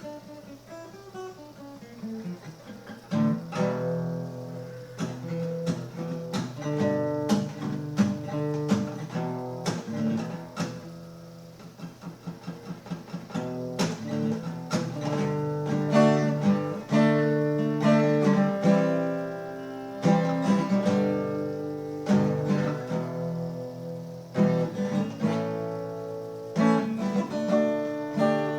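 Solo guitar playing, with picked single notes at first and louder strummed chords from about three seconds in.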